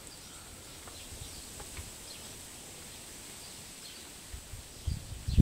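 Quiet outdoor garden background with faint scattered ticks and light handling sounds as the dripline is pinned down in the soil; a few low thumps come in near the end.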